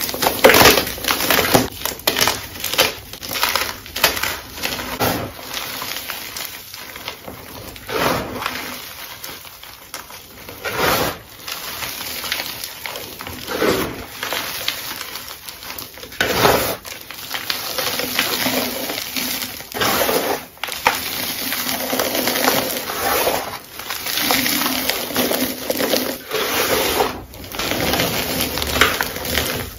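Chalk blocks coated in powdered pigment, crushed and crumbled between bare hands: dense, uneven crunching and crackling, loudest in the first couple of seconds.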